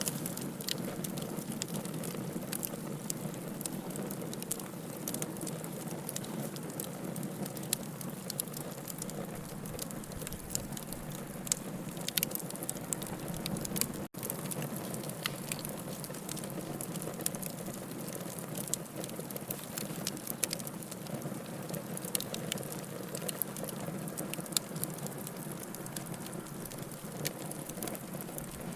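Wood bonfire burning, a steady hiss and rustle with frequent sharp crackles and pops of burning wood. The sound cuts out for an instant about halfway through.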